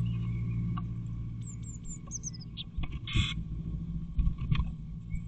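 Blue tits moving about inside a wooden nest box: a few short, high, falling chirps about one and a half to two seconds in, then scratching and several sharp knocks against the box as a second adult comes in through the entrance hole. A steady low hum lies under it.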